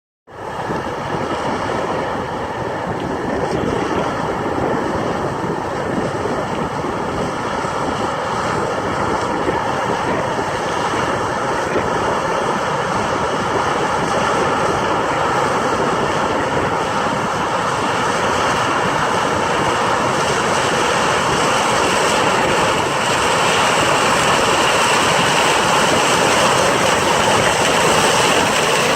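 Combine harvesting corn with a Nardi Maizestorm eight-row corn head and stalk choppers: a steady running noise from engine, header and choppers, growing gradually louder.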